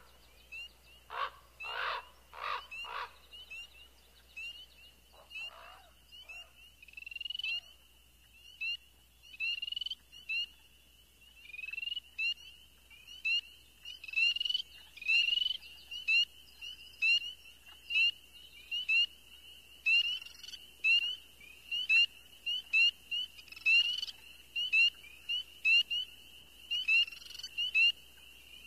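Animal calls: a steady high-pitched chorus with short rising chirps repeating about once a second, and a few lower calls in the first three seconds.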